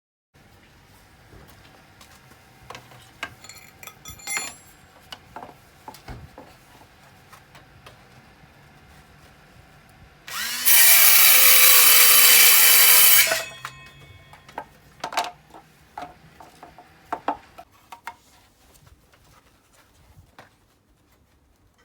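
Scattered knocks and clatter of tools and wood being handled; about ten seconds in, an electric power tool spins up and runs loudly on wood for about three seconds, then stops and the handling knocks carry on.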